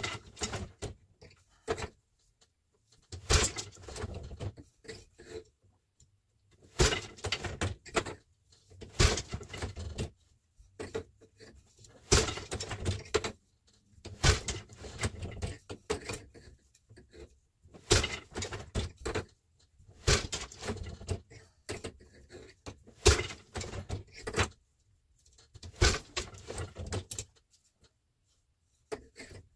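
Eight-shaft loom being woven: a cycle of wooden knocks and clatter about every three seconds as the sheds change, the boat shuttle is thrown and the beater strikes the cloth.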